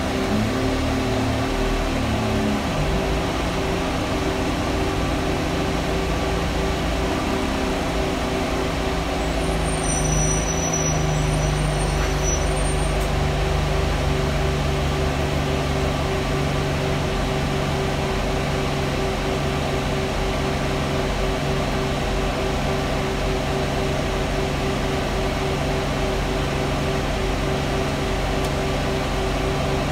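Inside a moving bus: the loud, steady hum of the saloon's ventilation fan over the running diesel engine, the engine note shifting about ten seconds in.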